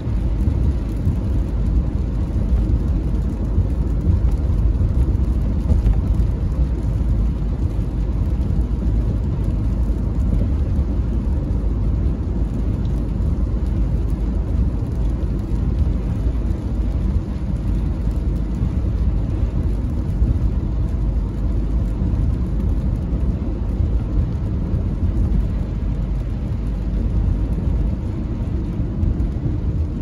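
Steady low rumble of a car driving on a wet road, heard inside the cabin, with rain on the car.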